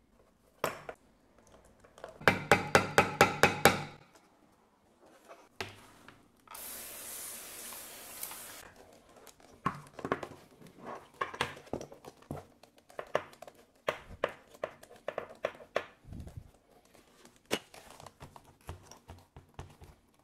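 A hammer striking a rivet setter about nine times in quick succession, setting a rivet through veg-tan leather armor pieces. A hiss follows for about two seconds, then scattered light knocks and rubbing as the leather pieces are handled.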